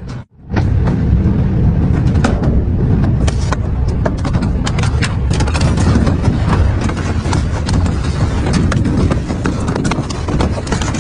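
Double-shaft shredder running with a heavy low rumble, its cutters cracking and tearing through a padded seat with a plastic frame: frequent sharp snaps over the steady grind. The sound cuts out for a moment just after the start.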